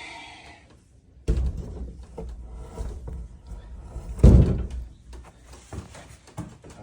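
A 45-pound weight plate being handled and hung on a wall-mounted DIY rack: a few knocks and bumps against the wood, with one heavy thud about four seconds in as it goes onto the rack.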